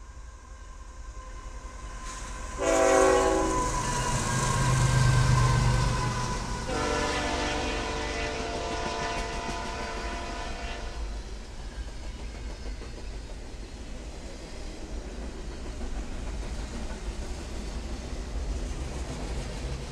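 CSX intermodal freight train passing at speed. The locomotives sound their horn, a blast about 3 s in and a longer one from about 7 to 11 s, and rumble past around 4 to 6 s in. After that comes the steady rumble and clatter of double-stack container cars on the rails.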